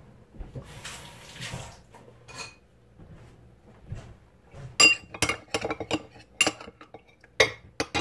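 A spoon clinking repeatedly against a dish while the face-mask mixture of potato juice, lemon juice and milk is stirred. A quick run of sharp, ringing clinks starts about five seconds in, after a short soft hiss about a second in.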